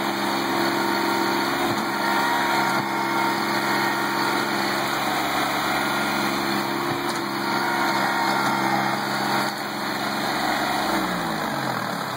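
Kubota B7510 compact tractor's three-cylinder diesel engine running steadily, its engine speed dropping about a second before the end.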